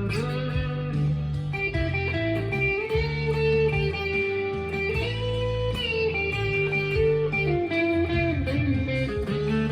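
Stagg SEL-STD electric guitar played through a Fender Mustang LT25 modelling amp: a melodic lead line of held notes with bends, over low notes ringing beneath.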